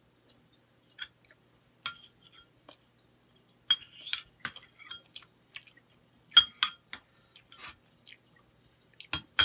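A metal fork clinking and tapping against a plate in a string of sharp, irregular clicks, the loudest near the end, with chewing between them.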